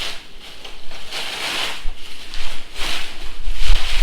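Packaging being handled and rustling, in several swishes about a second apart, with a low rumble of handling near the end.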